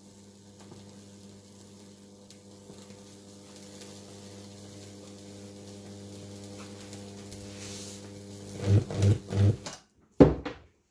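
Electrical hum of a fractal-burning high-voltage transformer, growing slowly louder, then three loud buzzing pulses before it cuts off. A single sharp knock follows near the end.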